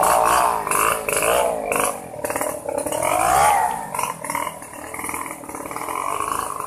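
Wooden hand cart carrying a log, its wooden wheels squealing on their axles in long wavering tones that slide up and down as it is pushed. Short knocks come from the cart jolting over the ground, and the squeal is weaker in the second half.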